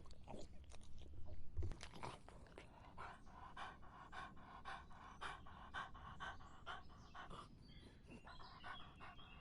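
A dog lapping water with its tongue: quick, wet, rhythmic laps, about three a second through the middle, with looser splashy laps at the start and near the end.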